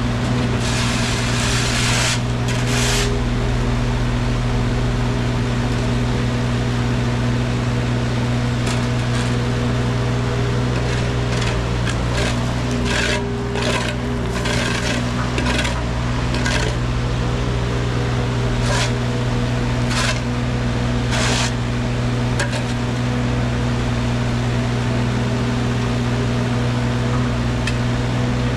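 Wacker Neuson mini excavator's diesel engine running steadily under load while the bucket digs, with bursts of scraping and knocks as it bites into the soil and stone.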